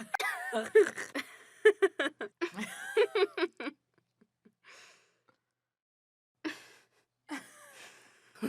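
Two women laughing: quick bursts of laughter for about four seconds, then a pause broken by a breath and gasps, and laughter starting again near the end.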